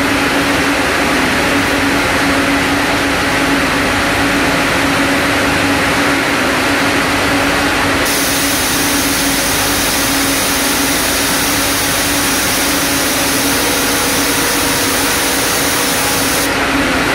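Ring spinning frame running: a loud, steady machine whir with a steady hum underneath. A higher hiss joins about halfway through and stops shortly before the end.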